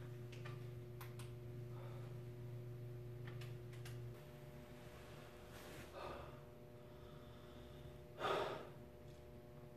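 A man's heavy breathing: a breath about six seconds in and a louder sharp gasping exhale near the end. Before that, a low steady hum cuts off about four seconds in, with a few faint clicks.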